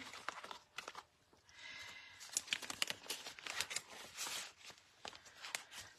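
Cardstock scraps being slid into a clear plastic page protector in a ring binder: faint rustling and crinkling of paper against the plastic sleeve, with small taps, picking up about a second and a half in.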